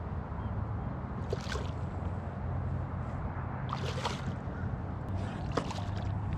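A hooked redfish thrashing and splashing at the water's surface, in three bursts: a little over a second in, about four seconds in, and again after five seconds, over a steady low hum.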